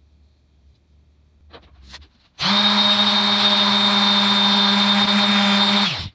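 Random orbital sander sanding a wooden pizza peel. It starts about two and a half seconds in, runs steadily with a high whine, and stops abruptly just before the end. A few faint handling sounds come before it.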